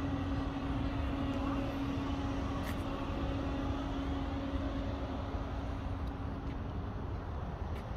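Steady low rumble of distant engine noise, with a steady engine hum that fades out about six and a half seconds in.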